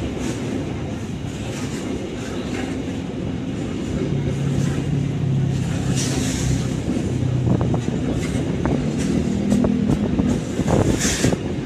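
Loaded container flatcars of a freight train rolling past close by: a steady rumble of steel wheels on the rails. From about halfway through, sharp clicks of the wheels over rail joints come more often.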